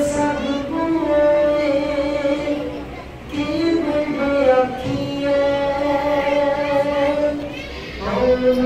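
A voice chanting Sikh scripture (gurbani) in long, held melodic lines, pausing briefly about three seconds in and again near the end.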